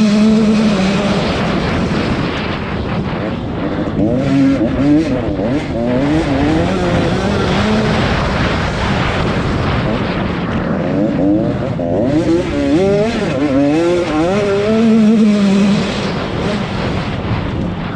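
Several velocross racing engines running at once, their pitches rising and falling as the drivers rev up and back off.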